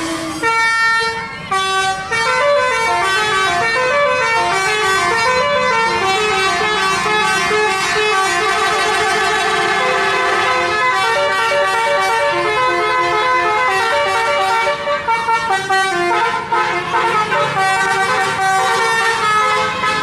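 A telolet bus horn, a multi-note musical bus horn, playing a melody of stepped notes. It breaks into a fast wavering passage in the middle and plays choppier, broken-up notes near the end.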